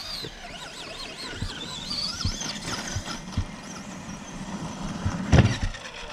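Electric motor of a Traxxas RC truck whining, its pitch wavering up and down with the throttle, over scattered light knocks and rattles from the ground. A loud knock comes about five seconds in.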